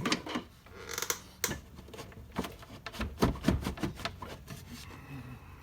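Irregular light clicks, taps and a short scrape of hands working the window glass and regulator clips inside a car door, with metal and plastic parts knocking together.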